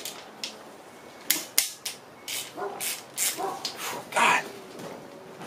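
Ratchet and socket working the oil pump bolts loose on a Honda K24A engine block: irregular sharp metallic clicks and clinks, with a louder rasping noise about four seconds in.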